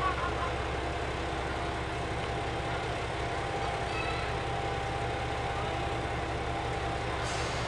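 JR Shikoku 2000-series diesel railcar's underfloor engines idling with a steady low hum while the train stands still.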